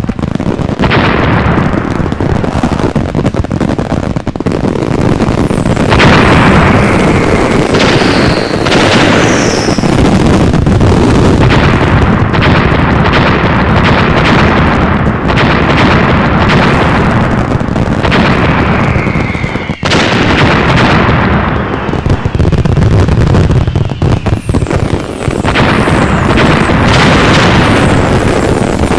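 Fireworks display: a continuous barrage of shells bursting, booming and crackling, with a few short falling whistles among the bursts.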